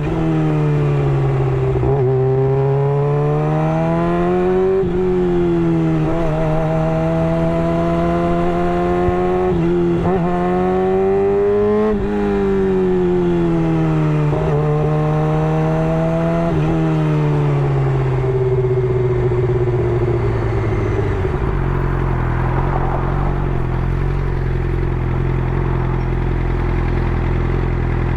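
Suzuki GSX-R600 inline-four through an M4 GP slip-on exhaust, its engine note repeatedly climbing and then dropping sharply. About three-quarters of the way through it settles to a low steady note, then starts to rise again near the end.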